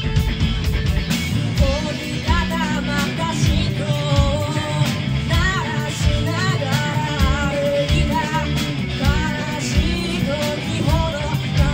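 Live rock band playing with electric guitar, electric bass and drum kit, loud and steady. A lead vocal comes in about two seconds in and sings on over the band.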